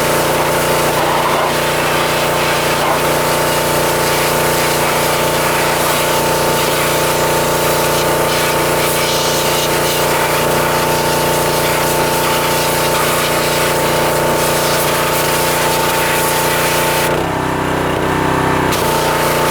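Pressure washer running, its steady machine hum under the hiss of the water jet. Near the end the spray stops for about a second and a half and then starts again, while the machine keeps running.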